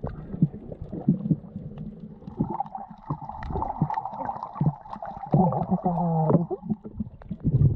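Muffled underwater sound from a camera held below the surface while snorkeling: irregular water knocks and thuds against the housing, with a steady higher hum through the middle. Near the end comes a snorkeler's muffled voice through the snorkel.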